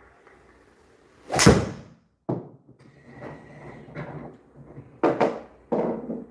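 A golf club striking a ball in an indoor simulator bay: one loud, sharp hit about a second and a half in, followed by several softer knocks.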